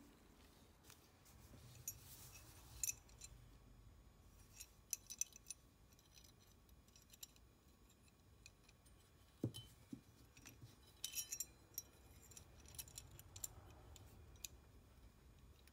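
Near silence broken by faint scattered clicks and light metal clinks, with one soft knock about halfway through: small metal parts being handled as a block plane's lever cap is fitted into a holding jig.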